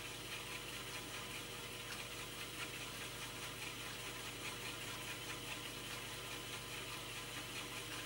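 Commodore 1571 floppy drive mechanism running faintly and steadily as it formats a disk, with a few light ticks from the head mechanism.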